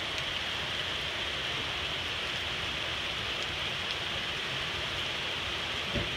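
Heavy rain falling in a steady downpour, an even hiss with no thunder.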